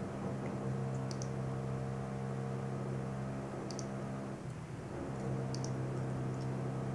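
Mouse button clicks, each a quick double tick, a few seconds apart, over a steady low hum.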